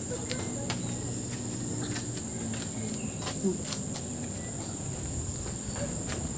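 Steady, high-pitched chorus of insects, over a low background rumble with a few light clicks scattered through it.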